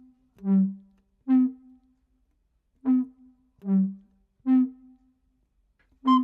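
Background music: single wind-like instrument notes alternating between a higher and a lower pitch in a slow, repeating phrase, with short silences between notes.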